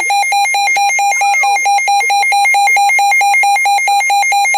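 Emergency Alert System alert tone: a loud electronic beep repeating rapidly and evenly, signalling the start of a severe thunderstorm warning broadcast.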